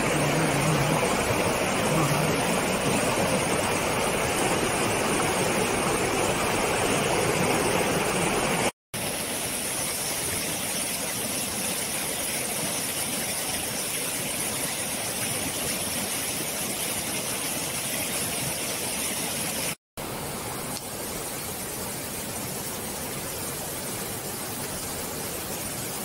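Steady rush of flowing stream water, a full even noise with no rhythm. It breaks off for an instant twice, about nine and twenty seconds in, and the tone shifts a little after each break, brighter and hissier in the later parts.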